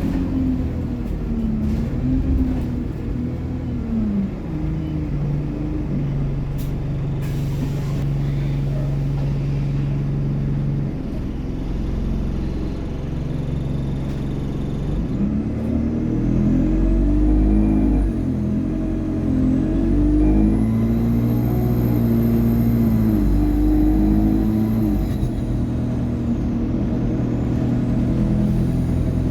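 ADL Enviro200 bus driving, its engine pitch climbing and dropping again and again as the Allison automatic gearbox shifts, with a short hiss about seven seconds in. In the second half a high turbo whine rises, holds and falls away.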